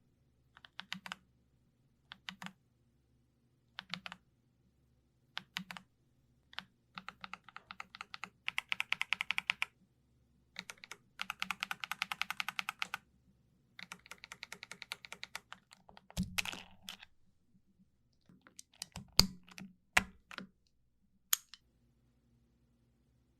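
Typing on a YUNZII B75 Pro mechanical keyboard. It starts with scattered single keystrokes, moves into fast runs of typing in the middle, and has a few louder key strikes near the end before it stops.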